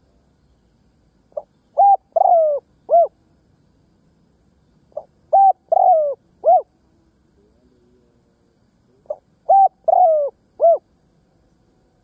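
Spotted dove cooing: three identical phrases about four seconds apart, each a short faint note followed by three loud coos. This is the decoy dove's call, used to draw in wild doves.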